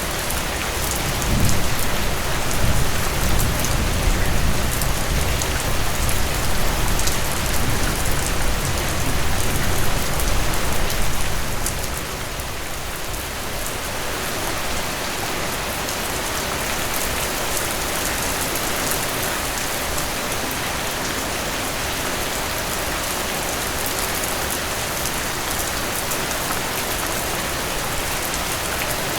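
Steady rain falling and pattering on surfaces, an even hiss with dense drops. A low rumble runs under it for roughly the first ten seconds and then drops away.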